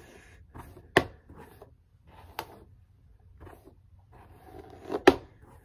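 A hairbrush pulled through long hair in repeated short brushing strokes, with three sharp knocks, the loudest about five seconds in.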